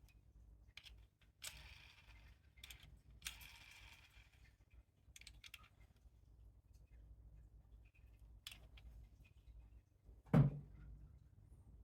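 Packaging being handled during an unboxing: two brief crinkly rustles and scattered small clicks, then one dull thump near the end, the loudest sound.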